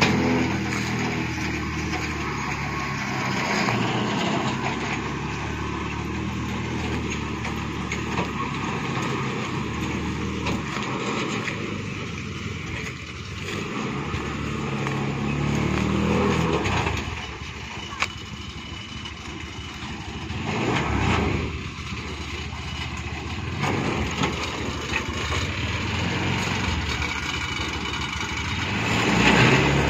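Petrol engine of a three-wheeled cargo truck (ba gác) running steadily at low revs, growing louder near the end.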